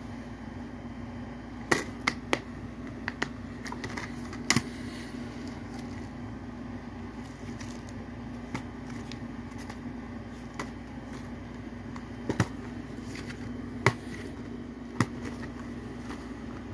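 Plastic Blu-ray cases being handled: several sharp clicks and clacks as an open case is snapped shut and another is picked up and turned over, a cluster early on and three more spaced out near the end, over a steady low hum.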